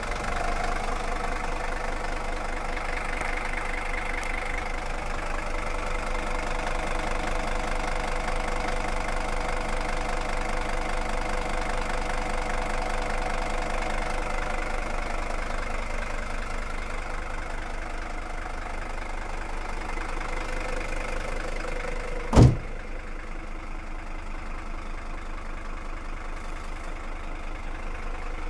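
Mercedes-Benz W123 300TD's five-cylinder OM617 diesel engine idling steadily with an even pulsing beat, shortly after a cold first start following five months of standing. About three-quarters of the way through the bonnet is slammed shut with one loud bang, and the engine then sounds quieter and duller.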